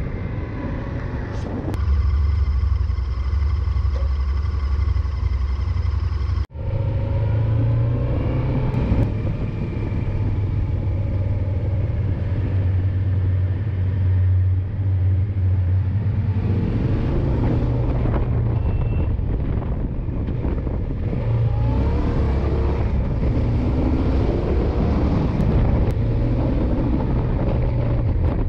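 Yamaha XT1200ZE Super Ténéré's parallel-twin engine running under way, with wind and road noise on the bike-mounted camera; the engine pitch shifts with throttle and gear changes. The sound cuts out for an instant about six seconds in.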